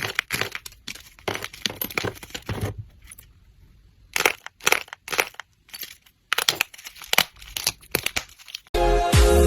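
Slime being squished and pressed by hand, giving clusters of crackling and popping with short pauses between them. Near the end, loud music with a beat comes in.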